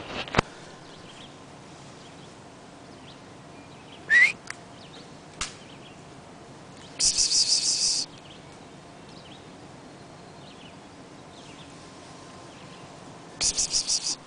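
Outdoor ambience with a bird calling: one short rising chirp, then a rapid high trill of about a second, repeated once some six seconds later. A few clicks of handling noise come right at the start.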